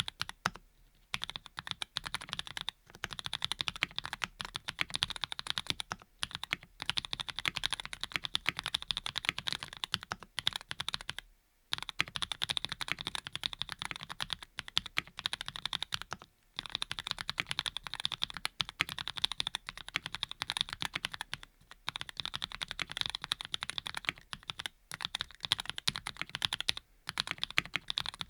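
Fast, continuous typing on a custom Graystudio Think6.5 V2 mechanical keyboard with lubed Cherry-bottom, Cream-stem linear switches, the keystrokes running together in long runs broken by brief pauses every few seconds.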